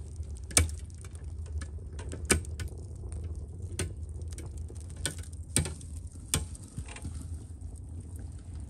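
Wood fire crackling inside a tandoor: irregular sharp pops over a steady low rumble.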